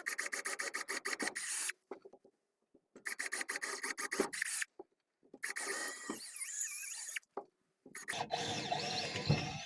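Power drill boring holes into green wood, in four bursts of a second or two each with short pauses between, the bit chattering and rasping as it chews through the fibres.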